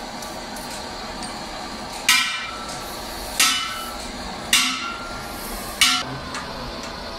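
Hammer striking a small metal part on the floor, four blows about a second and a quarter apart, each with a short metallic ring.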